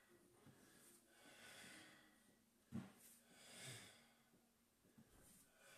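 Very faint, slow breathing of a man holding a prone leg-lift exercise on a mat: a few long breaths in and out, with one short, sharper sound near the middle.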